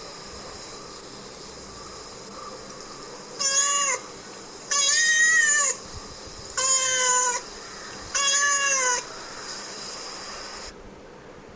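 Domestic cat meowing four times, each meow under a second to just over a second long, the second one the longest.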